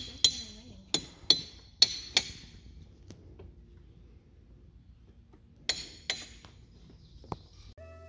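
A hammer striking olivine diabase boulders. Each sharp strike is followed by a short, high, bell-like ring. There are about five quick strikes in the first two seconds, then two more about six seconds in, and a faint tap near the end.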